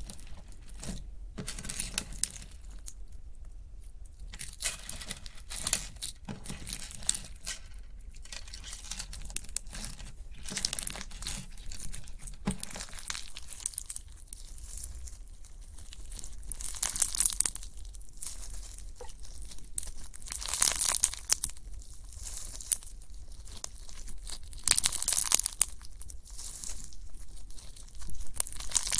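Slime being pressed and pulled by hand, making irregular crackling and crinkling noises, with louder bursts every few seconds.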